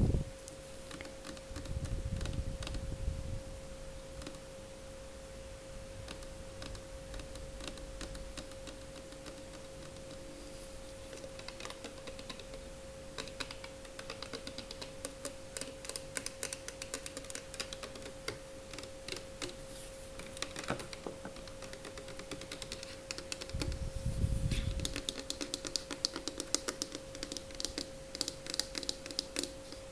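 ASMR tapping on product containers: rapid light clicks and taps, sparse at first and thickening in the second half, with a soft low bump of handling a couple of seconds in and again about three-quarters through.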